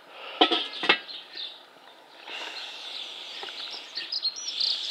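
Two sharp knocks about half a second apart near the start, then steady background noise with small birds chirping near the end.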